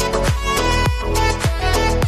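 Background music with a steady beat: a kick drum about twice a second under held synth or string notes and a sustained bass line.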